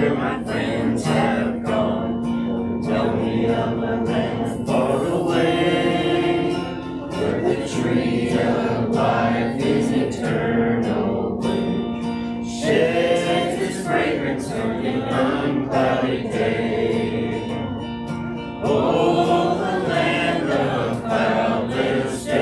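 A small congregation of men's, women's and children's voices singing a gospel hymn together from hymnals, accompanied by a strummed acoustic guitar.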